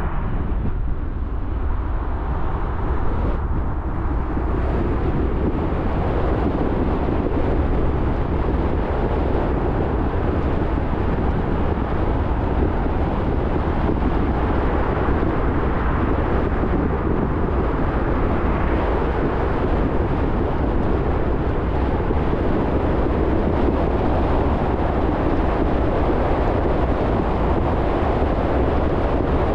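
Steady road noise of a car driving: tyre and wind rumble with a deep low drone, growing slightly louder over the first few seconds and then holding even.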